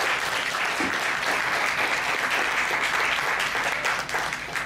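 An audience applauding, a dense clatter of many hands clapping that thins out near the end.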